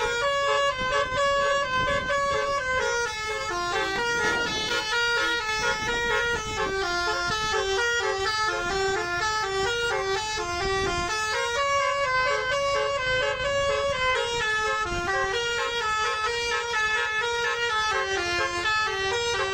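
A bus's telolet basuri horn, a multi-note musical air horn, playing a tune of short stepped notes that rise and fall without a break.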